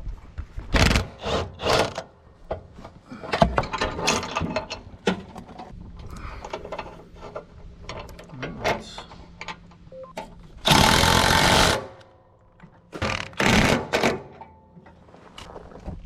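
Impact wrench running in short bursts, with one longer burst about eleven seconds in, as it takes out the bolt holding a knotted hanging chain on a zero-turn mower's deck. Quieter clinks of tools come between the bursts.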